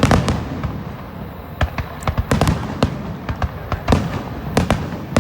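Aerial fireworks shells bursting: many sharp bangs in quick, irregular succession, the loudest right at the start, with a crackling rumble between them.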